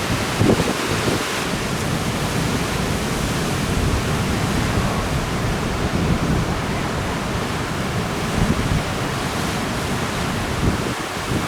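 Strong wind buffeting the microphone in irregular low gusts over the steady rush of breaking ocean surf.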